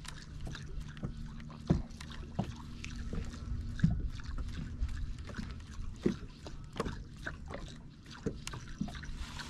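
Water lapping against a bass boat's hull, with scattered light knocks and clicks at irregular intervals.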